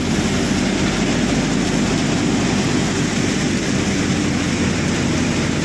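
A tractor-driven Shri Ganesh grain thresher running steadily under load, the tractor engine and the spinning threshing drum together making a continuous low drone.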